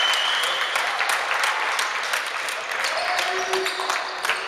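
Basketball game in a sports hall: spectators clapping and cheering, fading over the first few seconds, with a high steady tone cutting off under a second in. The ball bounces and sharp clicks and knocks come off the court throughout, with a short shout about three seconds in.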